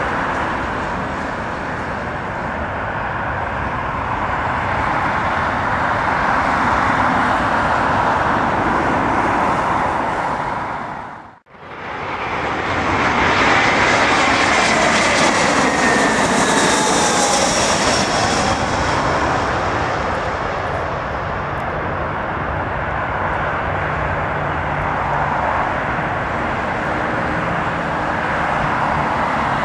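Jet airliners on approach and landing: a steady rush of jet engine noise, cut off abruptly about a third of the way in. Then a British Airways twin-engined airliner passes low overhead, its engine whine falling in pitch as it goes by, and its engine noise carries on steadily as it comes down onto the runway.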